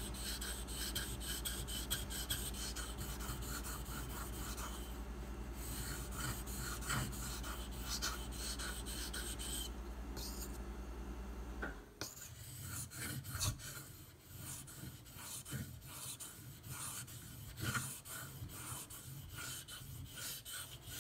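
Bark River Bravo EDC knife blade stroked across a 2000-grit water stone in a long run of quick, rasping strokes. A steady low hum behind it stops abruptly about twelve seconds in.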